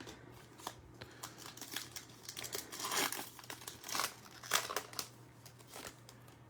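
Trading card pack wrapper being torn open and crinkled by hand: a run of irregular crackles, busiest about three and four seconds in.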